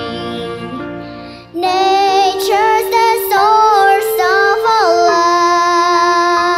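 A children's song with backing music. The first second and a half is instrumental; then a child's singing voice comes in loud over the accompaniment, holding and bending long notes.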